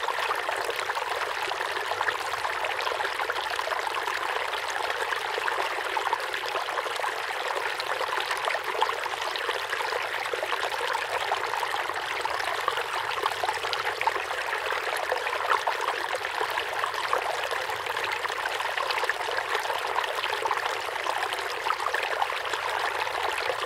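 Water running steadily into a fish tub: a continuous trickling splash with no breaks.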